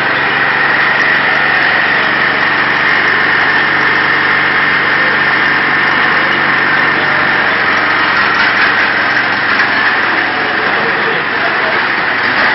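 Small engine of a scratch-built 1:5 scale FIAT 70C crawler tractor model running steadily, with a high-pitched note; the engine note changes about seven seconds in, as the model is set moving.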